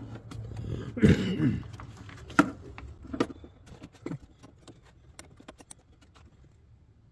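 Small metallic clicks and knocks from the positive cable and terminal hardware being handled and fitted to a truck battery's side post: three sharp clicks, then fainter ticks that die away. A brief low voice sound comes about a second in.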